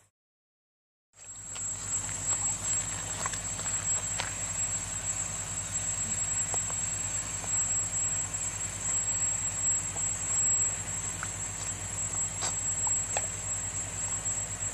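After about a second of silence, a steady outdoor background: a constant high-pitched whine over a low hum, with a few faint ticks.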